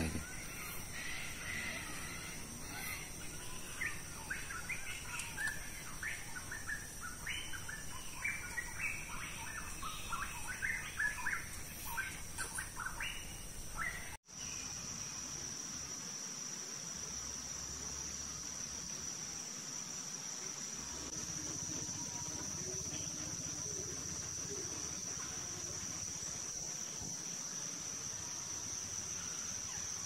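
A flock of sulphur-crested cockatoos calling, many harsh screeches overlapping for about the first fourteen seconds. After an abrupt cut, a steady high insect drone.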